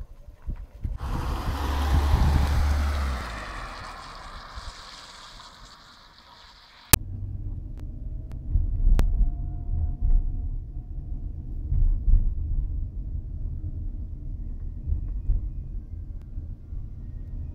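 A loud rushing noise with a deep rumble swells and then fades over several seconds. After a sharp click, the low steady rumble of a small car's engine and tyres, heard from inside the cabin while driving.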